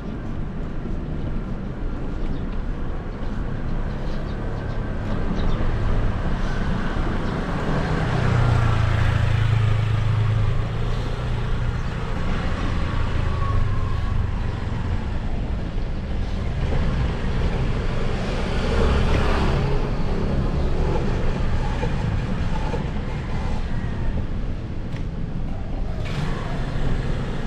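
Street traffic: motor vehicles running and passing close by. The engine hum swells loudest about eight to eleven seconds in and again around nineteen seconds.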